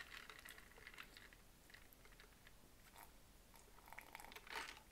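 Faint mouth sounds: soft lip and tongue clicks, then a short slurp through a drinking straw near the end.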